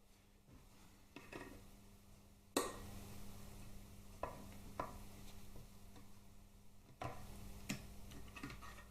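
Hand tools clinking and knocking against a Harley inner primary case while a circlip is worked out with circlip pliers: about seven separate metallic clicks and taps, the loudest about two and a half seconds in.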